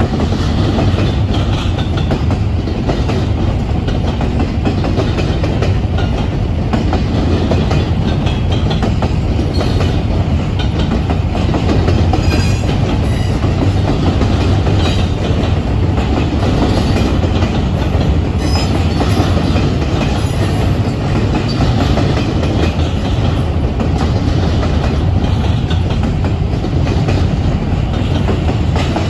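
Double-stack intermodal freight train cars rolling past: a steady rumble of steel wheels on the rails.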